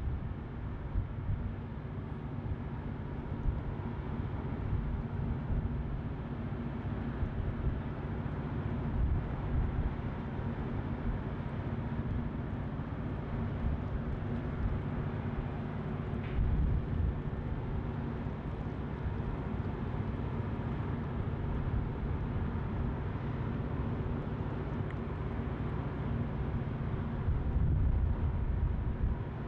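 Low, steady rumble of a motor tanker's engines while it manoeuvres in the harbour, with an uneven low buffeting through it.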